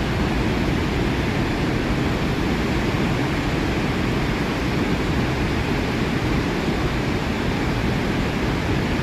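Iguazu Falls' huge waterfalls: a steady, dense rush of falling water, strongest in the low end.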